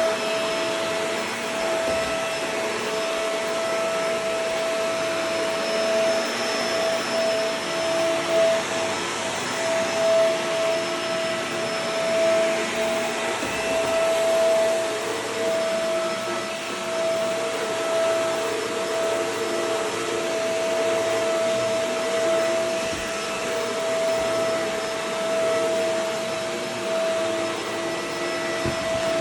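Vacuum cleaner running steadily, its motor giving a constant whine over the rushing hiss of air.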